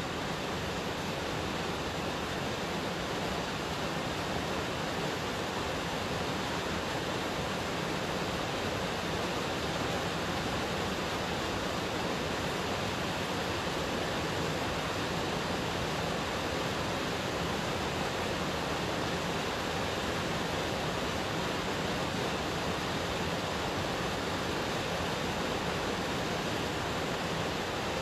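Steady, even rushing noise like surf or falling water, unchanging, with no tones or rhythm.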